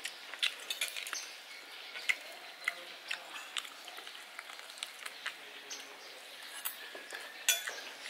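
People eating at a table: irregular sharp clicks of spoons and forks against ceramic plates and bowls, with chewing and lip smacks.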